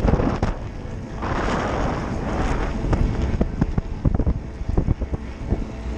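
Wind buffeting a bicycle-mounted action camera's microphone while riding, over a steady low rumble. Many short rattling knocks come from the bicycle rolling over the road, thickest in the second half.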